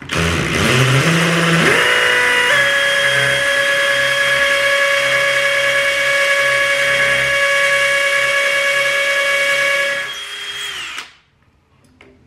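DeWalt 18V cordless drill boring a fixing hole into a brick wall: it starts up, its pitch climbing in steps over the first couple of seconds, runs steadily for about ten seconds, then winds down and stops.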